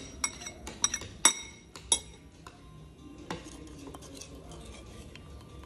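Spoon clinking against a ceramic plate: a quick run of sharp, ringing clinks in the first two seconds, then a duller knock a little past three seconds.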